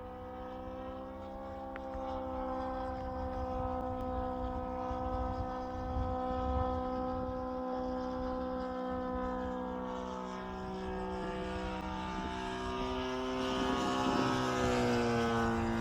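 Saito FG-60R3 three-cylinder four-stroke radial petrol engine on a radio-controlled model plane, running steadily with its propeller. Its pitch rises slightly about a second in and drops near the end as the throttle comes back.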